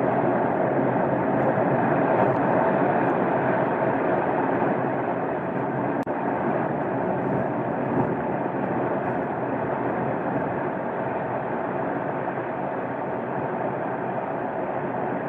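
Steady rushing rumble of a massive ice-and-rock avalanche from the collapsing Birch glacier, fading slowly.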